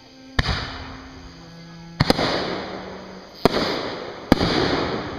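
Fireworks bursting overhead: a series of sharp booms about a second apart, one of them doubled, each trailing off in a noisy tail.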